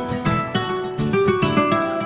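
Background music with plucked acoustic guitar and a steady beat.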